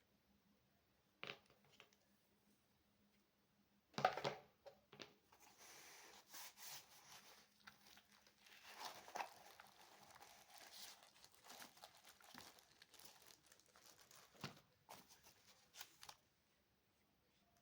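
Packaging being handled: plastic wrapping crinkling and rustling, with a sharp knock about four seconds in and a single click shortly before.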